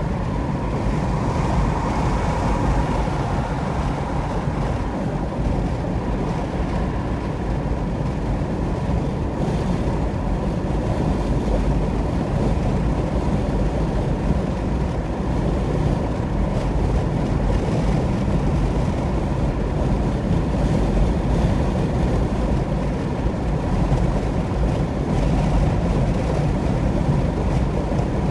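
Steady road noise of a car driving at highway speed: tyre rumble and wind noise, with no change in pace.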